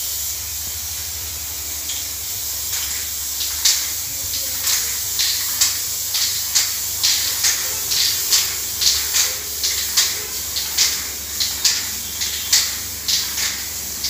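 Aerosol spray-paint can spraying: a steady hiss, with short louder spurts about twice a second from a few seconds in.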